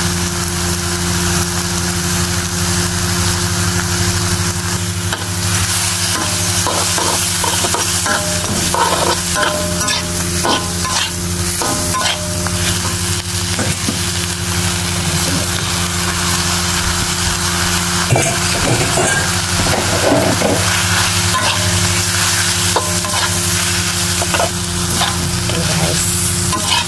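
Stir-frying in a wok: food sizzling steadily while a metal spatula scrapes and knocks against the wok, busiest in two spells, over a steady low hum.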